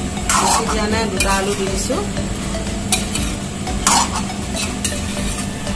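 A steel spoon scraping and stirring chopped ash gourd and potato in a pan of hot oil and masala, about one stroke a second, with a light sizzle of frying underneath.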